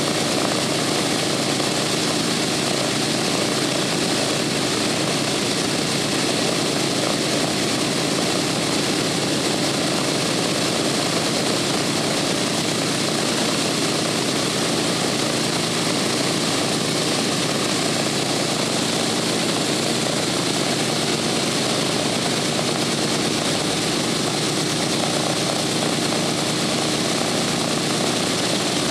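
Boeing B-17 Flying Fortress's four Wright R-1820 Cyclone nine-cylinder radial engines running steadily on the ground, propellers turning, with an even engine and propeller drone that does not change in level.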